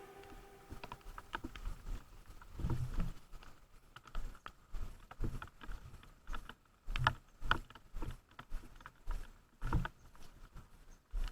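Irregular soft knocks and thumps with light rustling, a few stronger ones about three, seven and ten seconds in.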